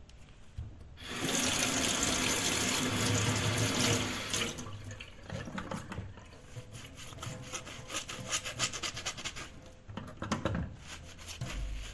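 Washing dishes at a kitchen sink: about a second in the tap comes on and water runs loudly into the sink for a few seconds, then the flow drops and a string of clinks and knocks of dishware and cutlery follows.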